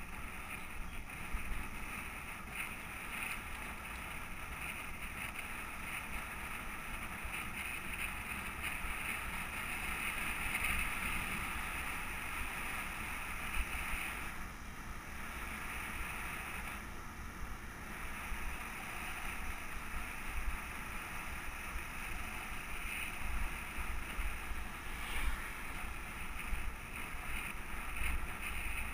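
Steady wind rush on the microphone and the rumble of bicycle tyres rolling on asphalt, heard from a camera moving with a riding cyclist, with a few brief knocks.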